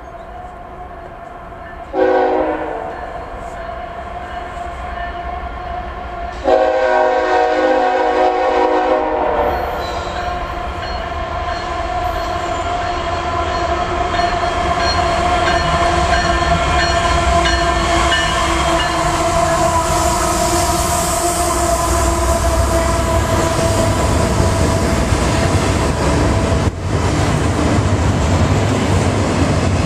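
Diesel freight locomotive's air horn sounds twice as the train approaches: a short blast about two seconds in, then a longer one of about three seconds starting around six seconds in. The locomotive then passes, followed by double-stack container cars rolling by on the rails, growing louder and steadier.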